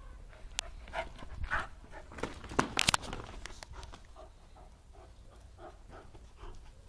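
Young pit bull playing with a toy on a concrete floor: a flurry of sharp knocks and scuffs, loudest about halfway through, then rhythmic panting.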